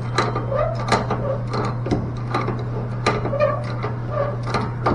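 Hand tools clicking and knocking irregularly on the metal parts of a mixing valve as it is taken apart, over a steady low hum.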